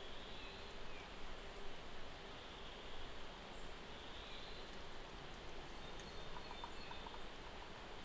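A forest stream running steadily, with faint high bird calls over it and a short run of faint ticks about six seconds in.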